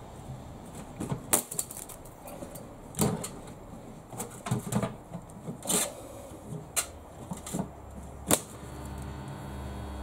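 Metal clanks and knocks as a steel padlock is set in place against heavy copper bus bars with gloved hands. About eight and a half seconds in, a sharp click is followed by a steady mains hum as the high-current supply transformer is switched on and pushes over a thousand amps through the lock.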